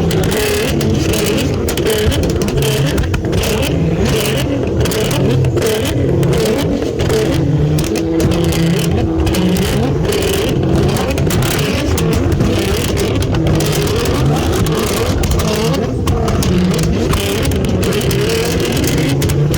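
Nissan GT-R R35's twin-turbo V6 running under varying throttle, its engine note rising and falling repeatedly.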